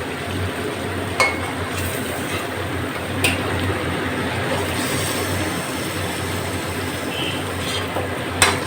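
Chicken pieces sizzling steadily in hot oil and ghee in a kadai, with three sharp clinks of a metal utensil against the pan as the fried pieces are lifted out.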